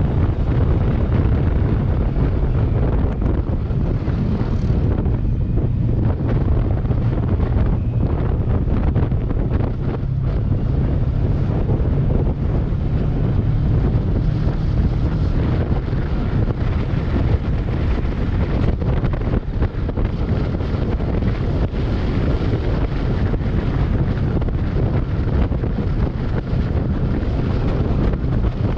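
Wind buffeting the microphone on a moving Kawasaki Versys 650 motorcycle, over the low, steady sound of its parallel-twin engine.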